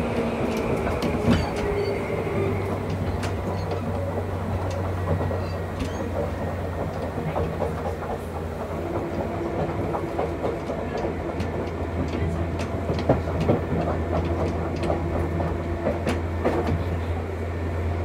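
Tokyu 8500 series electric train running, heard from inside the car: the traction motors' whine falls in pitch over the first two seconds, over a steady low hum, with sharp clicks of the wheels crossing rail joints. A steady whine sets in about nine seconds in and holds for several seconds.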